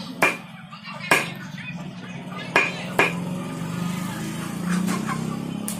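Butcher's knife chopping raw chicken pieces on a wooden log chopping block: sharp, irregular chops about a second apart, with lighter ones near the end.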